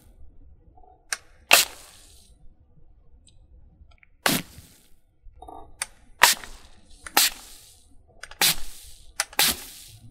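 Close-miked water and ice trigger sounds: a string of sharp, short strokes with a brief hissing tail, about one every second, some coming in quick pairs.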